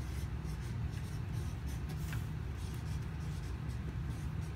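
Felt-tip marker writing on flip-chart paper, a few faint scratchy strokes, over a steady low hum.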